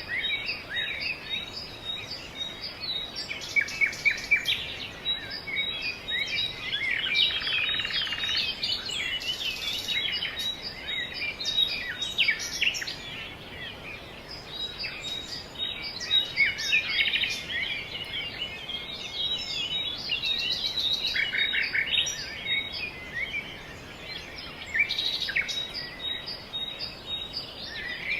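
Songbirds chirping and twittering, many short overlapping calls and warbles following one another without a break.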